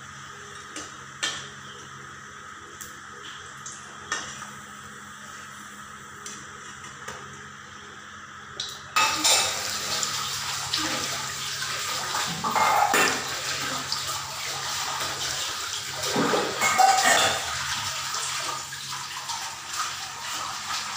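Fish-roe fritters frying in a wok of hot oil: a few sharp clinks of a metal spatula against the wok over a low sizzle, then about nine seconds in a sudden, much louder sizzle as a full wok of fritters fries.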